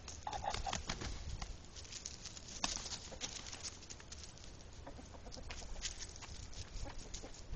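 Irregular crunching and rustling of dry leaves and pine straw underfoot as the chickens move over the ground, with a short chicken call about half a second in.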